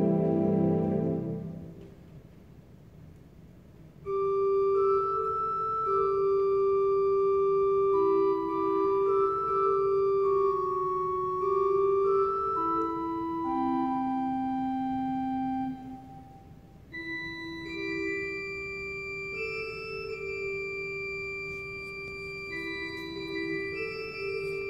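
Casavant pipe organ playing. A full chord cuts off about a second and a half in. After a short quiet gap, a slow melody of long held notes on a soft stop begins. It breaks off briefly and resumes in a higher register.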